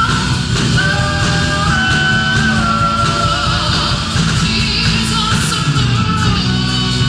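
Live worship music: a woman singing the lead melody over a full band accompaniment in a rock style.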